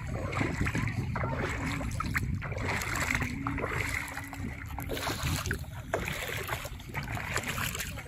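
Sea water splashing and sloshing over a steady low rumble.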